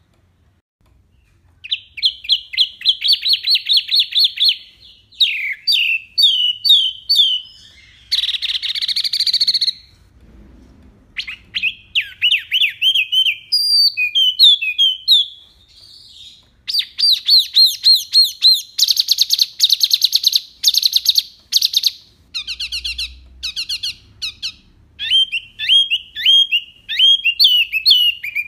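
Wambi mini songbird singing in rapid bursts ('tembakan'): fast runs of repeated whistled notes and trills, phrases of one to three seconds separated by short pauses, starting after a brief silence.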